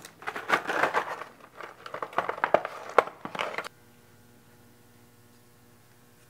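Paper and cardboard packaging being rustled and handled, with crinkles and sharp clicks. It cuts off suddenly about two-thirds of the way in, leaving a faint steady hum.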